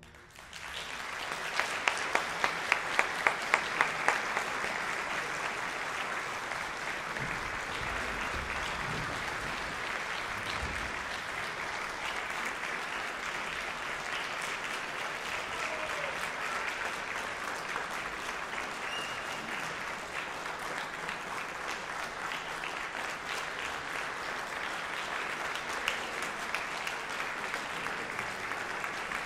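Audience applauding at a steady level, with a run of quick, evenly spaced louder claps close by a couple of seconds in.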